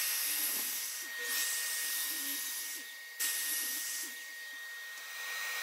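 Makita 10-inch sliding miter saw running and cutting a pine 2x3, heard as a thin, hissing rush that swells and fades about three times.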